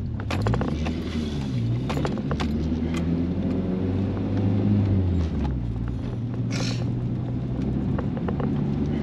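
Nissan Sentra B13's turbocharged 1.6-litre four-cylinder engine heard from inside the cabin as the car drives off, running on an untuned speed-density setup with no MAF sensor. The revs climb, drop at a gear change about five seconds in, then hold steady, with a short hiss shortly after the shift.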